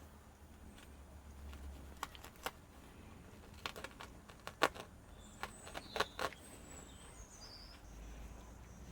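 Faint, scattered clicks and crackles of a craft knife scoring a slit in a paper Henry vacuum bag and the bag being handled, with a few faint high bird chirps in the background about two-thirds of the way through.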